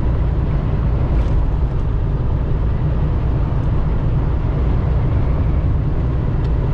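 Semi truck cruising on the highway, heard from inside the cab: a steady, mostly low drone of engine and road noise.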